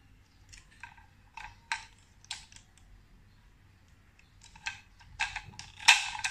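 Plastic parts of a toilet fill valve clicking and snapping as they are fitted back together by hand: scattered light clicks, then a denser run of louder clatter near the end.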